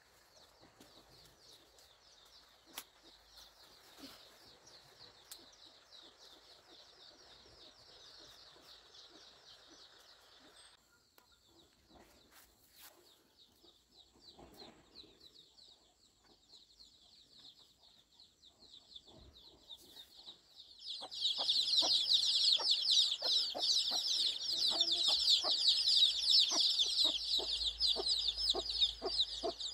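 Many chicks peeping together in a dense, continuous chorus. It is moderate at first, thins out briefly, then gets much louder about two-thirds of the way in. Rapid light clicks run under the peeping in that louder part.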